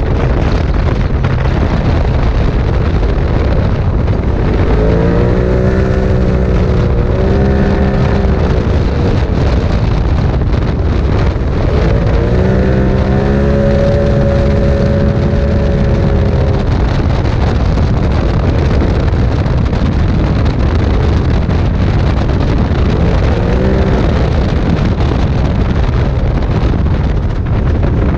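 Side-by-side UTV driven at speed, heard from inside its open cab: steady engine and drivetrain noise with wind rush. The engine pitch twice climbs and holds high as it accelerates, and climbs briefly once more near the end.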